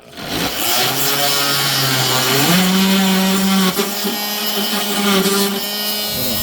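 Warrior 2 Amp corded variable-speed oscillating multi-tool starting and running with its blade cutting, a steady buzz with a gritty hiss; the pitch steps up about two and a half seconds in and holds there.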